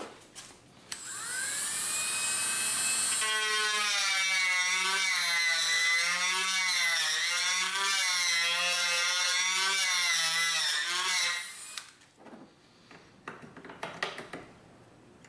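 Dremel rotary tool spinning up with a rising whine, then grinding away the wooden rifle stock for about eight seconds, its pitch wavering under load. It stops abruptly, followed by a few light handling knocks.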